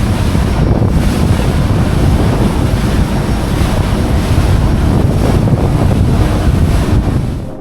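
Strong wind buffeting an action camera's microphone: a loud, steady rushing heaviest in the low end, dropping away right at the end.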